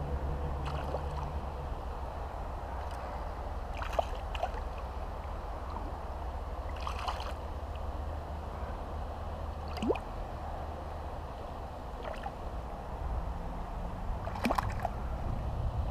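Small splashes and drips of river water as hands work a fish in a landing net held in the shallows, about five spread out over a steady low rumble.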